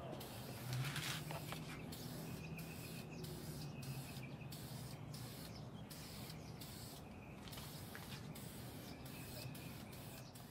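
Aerosol can of spar urethane hissing as a clear sealant coat is sprayed onto a plastic headlight, in a run of sprays with many brief breaks, over a low steady hum.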